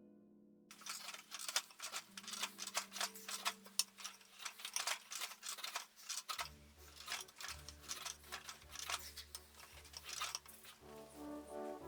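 Side chisels cutting into poplar wood: a run of irregular sharp cuts and clicks, several a second, starting about a second in, with soft background music underneath.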